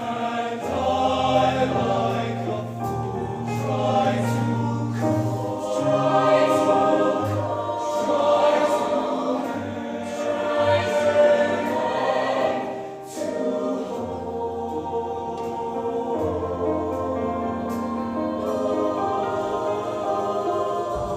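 Mixed-voice show choir singing long held choral notes over a low bass line, with a short dip in loudness about two-thirds of the way through.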